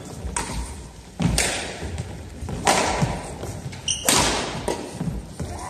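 Badminton rally: several sharp racket strikes on the shuttlecock and the thuds of players' feet on a gym floor, each ringing on in the hall's echo.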